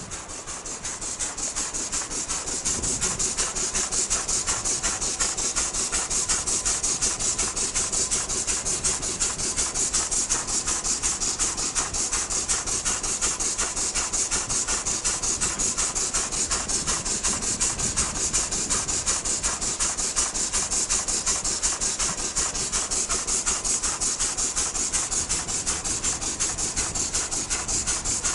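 Peerless size K steam traction engine, nearly a century old, running with a rapid, even beat over a steady hiss. The sound builds over the first couple of seconds, then holds steady.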